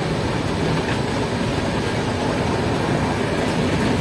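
Steady running noise of a moving Indian Railways passenger train, heard from inside a sleeper coach.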